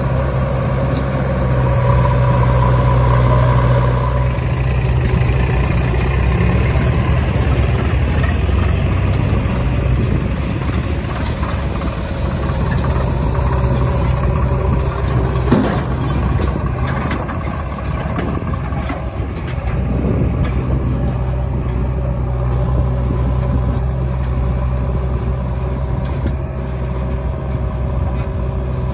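Diesel engines of a JCB 3DX backhoe loader and a Swaraj 742 XT tractor running steadily while the backhoe digs and loads mud into the tractor's trolley, with a couple of knocks about halfway through.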